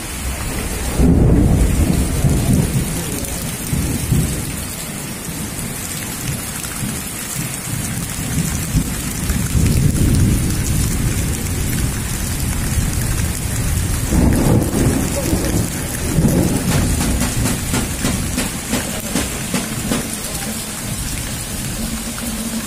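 Heavy rain pouring steadily, with deep low rumbles swelling about a second in, around ten seconds in and again around fourteen seconds in.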